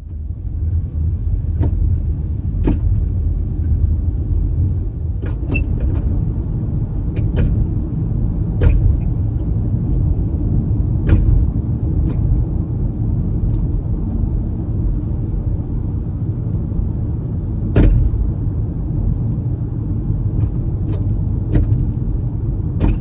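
Steady low road rumble from a Honda Odyssey Hybrid (RC4) on the move, with irregular sharp clicks and rattles, the loudest about three-quarters of the way through. This is the front passenger-side rattle that the owner reports together with a metallic rubbing noise.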